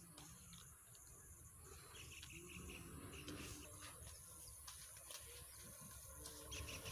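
Near silence: faint outdoor field ambience with a low rumble and a few faint, short high chirps.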